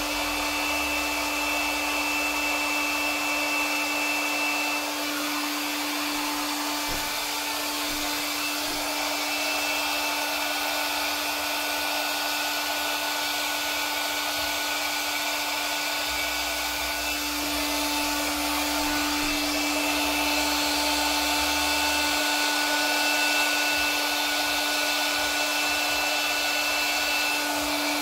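A handheld electric blower running steadily: a rushing whir of air over a constant motor hum, with a few faint steady whines on top.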